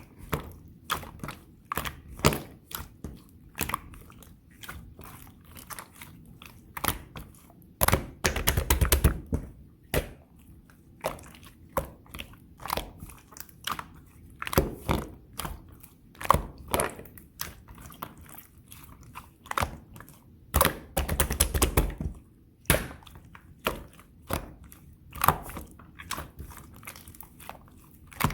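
Chewy, cream-coloured slime being squeezed and stretched by hand, giving sticky clicks and pops. Twice, about eight seconds in and again about twenty-one seconds in, it breaks into a couple of seconds of rapid crackling pops.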